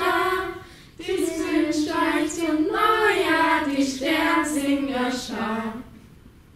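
Children singing a line together without accompaniment, with a short pause about half a second in, then a longer phrase that fades out near the end.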